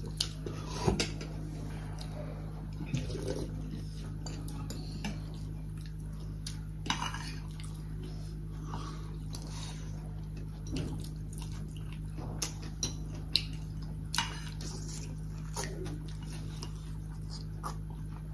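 Forks and spoons clicking and scraping against ceramic plates and bowls during a meal, with a few short eating and noodle-slurping noises between the clicks, over a steady low hum.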